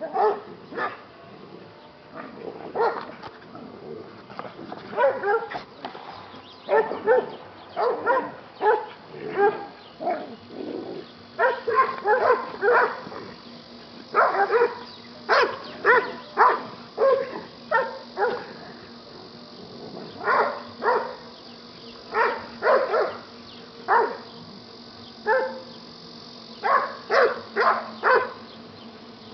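Dog barking in quick clusters of short, sharp barks with brief pauses between them. These are play barks from dogs play-fighting.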